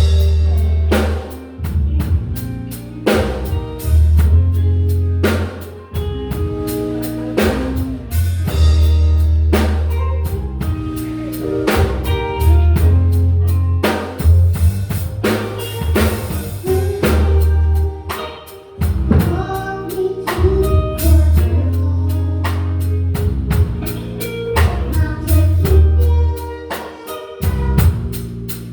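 Live gospel band playing an instrumental passage: a drum kit with snare and bass drum keeping a steady beat under a deep bass line and held keyboard and guitar chords.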